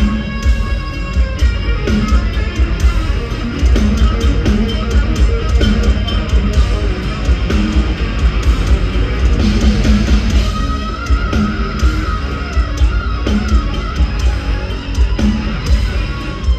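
Heavy metal band playing live, heard from the arena crowd: distorted electric guitar over bass and drums, with a held guitar note partway through.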